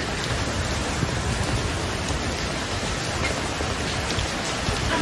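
Heavy rainstorm over surging floodwater: a steady, dense rush of rain and water noise.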